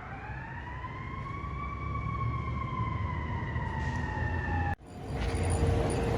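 Fire truck siren in one slow wail: the pitch rises for about two seconds, then slowly sinks, over a low rumble. It cuts off abruptly near the end, leaving a louder low rumble.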